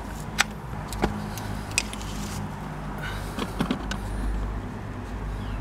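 A few sharp clicks of handling over a steady low hum of a running vehicle engine.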